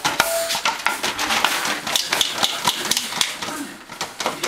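Hound puppy chewing an empty plastic soda bottle: rapid, irregular crackling and popping of the plastic.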